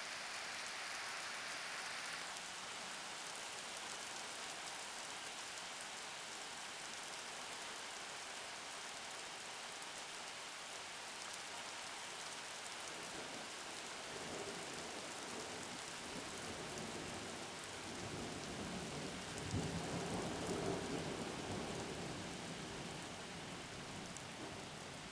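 Thunderstorm: a steady hiss of rain, with a low roll of thunder that builds about halfway through, is loudest about three-quarters of the way in, then dies away.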